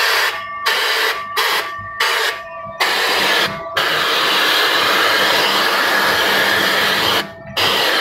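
Pneumatic air vacuum blow gun hissing with compressed air as its nozzle draws up plastic shavings. The trigger is pulsed in about five short blasts, then held open for about three seconds; the air cuts off briefly near the end and starts again.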